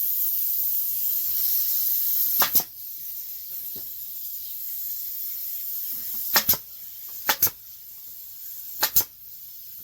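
Compressed air hissing steadily, then a pneumatic nail gun firing four times, each shot a quick double clack: the first about two and a half seconds in, the others spread over the next six seconds.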